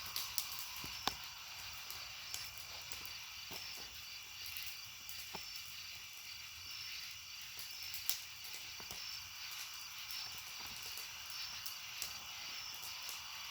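Fire crackling, with scattered sharp pops and snaps, over a steady high chirping of insects.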